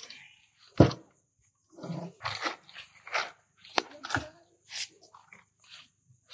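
Grilled chicken pieces being pushed and pulled off a long metal skewer rod onto palm leaves: a string of short knocks, scrapes and leaf rustles, with one sharp thump about a second in.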